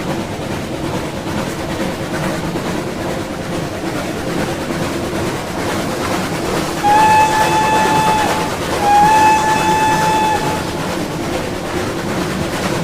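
Steam train running past with a steady rumble, its steam whistle blowing two long blasts about seven seconds in, one just after the other, each lasting about a second and a half.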